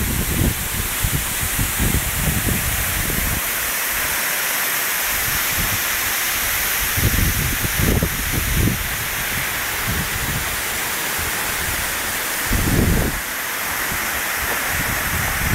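Waterfall at a dam spillway, water falling and rushing in a steady, dense hiss. Irregular low buffeting of wind on the microphone comes and goes, strongest around seven to nine seconds in and again near thirteen seconds.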